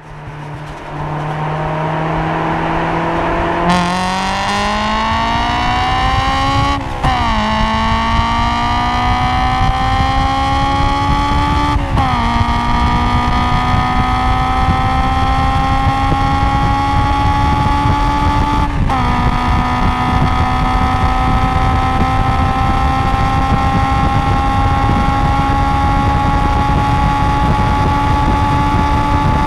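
Honda S2000's four-cylinder engine, breathing through a Mugen intake and an Invidia Q300 exhaust, heard from inside the cabin under hard acceleration. After a few seconds of steady running the revs climb at full throttle, with three upshifts about seven, twelve and nineteen seconds in, each dropping the pitch before it rises again.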